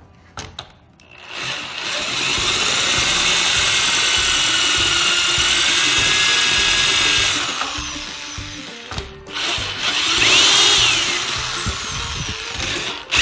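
Drill with a step bit boring through a plastic enclosure: a steady whining run of about six seconds that slows and stops, then a second, shorter run whose pitch rises and falls as the trigger is worked.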